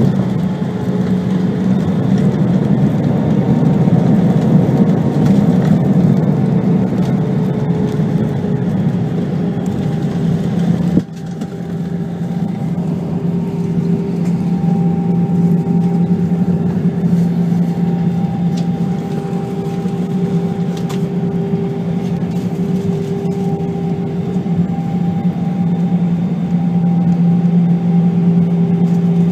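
Cabin noise of an Airbus A320-214 with CFM56 engines: a steady rush of engine and airflow noise with a low engine hum. It drops suddenly about 11 seconds in, then continues with a steadier hum.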